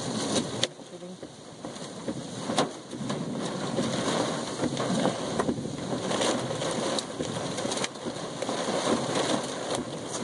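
Nickel- to quarter-sized hailstones pelting a car's body and windshield: a dense, steady rattle of sharp hard hits, a few louder than the rest, over rushing rain and wind, heard from inside the car with the driver's window open.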